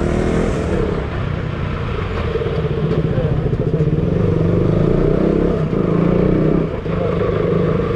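KTM Duke motorcycle engine running at low speed, its note rising and falling slightly as the throttle is worked, with a brief dip in level near the end.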